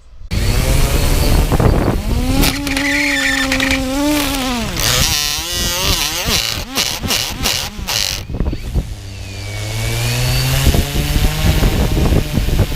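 Hubsan X4 Pro quadcopter's motors and propellers running on out of control after a crash landing, their whine rising and falling in pitch, with a run of sharp clicks in the middle. The motors won't respond to shut-off commands.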